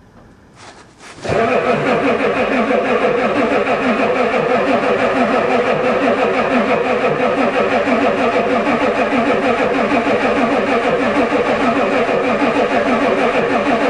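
Starter motor cranking a cold Ford diesel truck engine, kicking in about a second in and running on steadily with a fast, even rhythm of compression strokes, without the engine firing.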